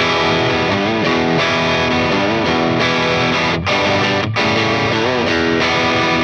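Electric guitar played through a Peavey Bravo 112 all-tube combo's clean channel, pushed by a Klon-style overdrive pedal into a mildly overdriven, country-outlaw type lead. The notes include several string bends.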